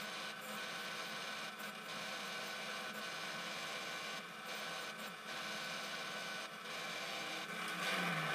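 Quorn tool and cutter grinder running steadily, its wheel grinding relief onto the flutes of a tap as the tap is worked back and forth against it.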